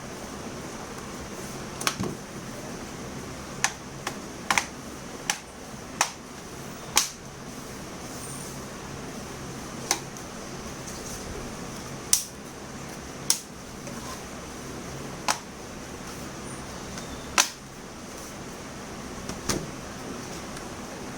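Scattered sharp clicks and taps, about a dozen at uneven intervals, from small laptop parts and tools being handled during disassembly, over a steady low hiss.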